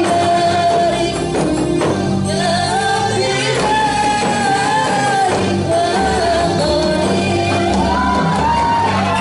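Samroh performance: a high singing voice carries a melody with held, gliding notes over rebana frame drums keeping a steady beat.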